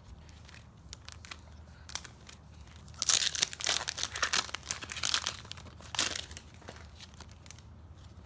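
Foil trading-card pack wrappers and a paper insert crinkling as they are crumpled by hand, in a run of rustling bursts about three to five seconds in and another short burst near six seconds.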